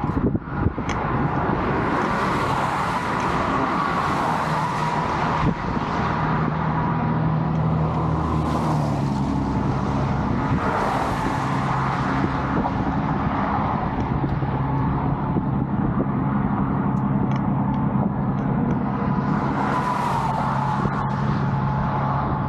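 Road traffic: steady motor-vehicle noise with a low engine hum, as several vehicles swell past one after another.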